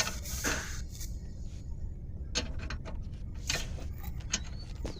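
A few separate metallic clicks and knocks from hand tools working on car suspension parts, spaced a second or so apart, over a low steady hum.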